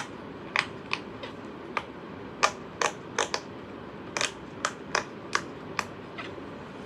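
Hexagon-shaped silicone push-pop fidget toy having its bubbles pressed one after another, giving about fourteen sharp pops at an uneven pace of roughly two a second.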